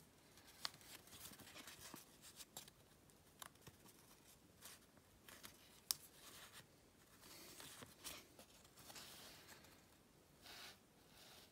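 Faint rustling and crinkling of origami paper being folded and pinched by fingers, with a few sharp little clicks as creases are pressed; the loudest click is a little past halfway.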